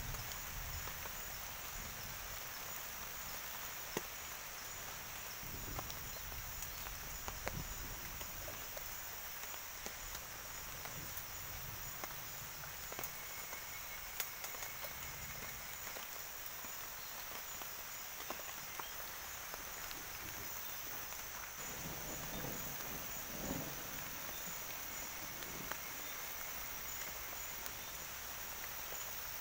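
Steady high-pitched insect chorus, crickets or similar, over a low background hiss. Scattered faint clicks run through it, and there is a brief louder rustle about three quarters of the way through.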